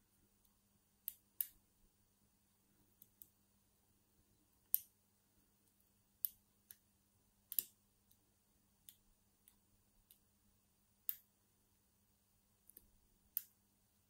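Lock pick and tension wrench clicking in the keyway of a Master Lock M5 padlock as it is picked: about fifteen short, sharp clicks at irregular intervals, faint overall.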